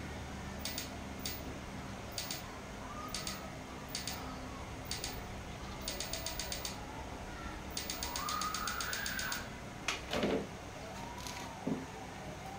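A string of sharp clicks, some single and some in quick runs of about ten a second, with bird calls in the background, the loudest a falling call about ten seconds in.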